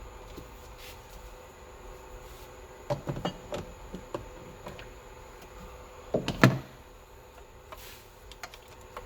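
Knocks and clicks of hoses and parts being handled and moved in a car's engine bay: a quick run of small clicks about three seconds in, and a louder clatter a little after six seconds.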